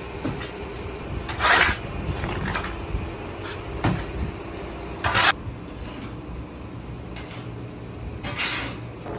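Four short, rough scraping strokes over a steady low hum.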